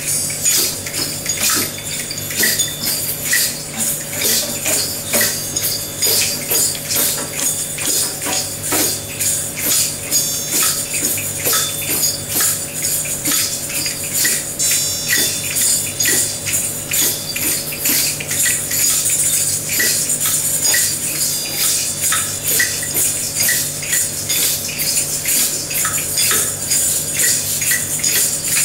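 A group playing hand percussion together: tambourine jingles, shakers and clappers ringing, rattling and clicking in a dense, loose, steady pulse.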